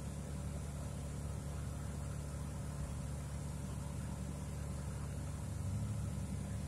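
Steady low hum of an idling engine or motor, growing slightly louder near the end.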